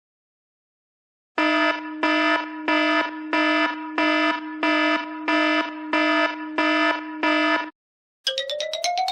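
An iPad Pro ringtone in alarm style: ten buzzing pulses, about one and a half a second, over a steady low tone, starting a little over a second in. Near the end, after a short gap, a different ringtone starts with a tone gliding steadily upward.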